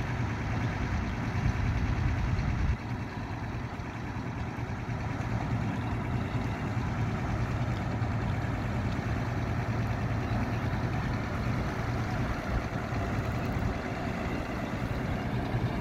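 Engine of a truck-mounted well-drilling rig running steadily while boring a tubewell. Its low note drops back a little about three seconds in, then holds.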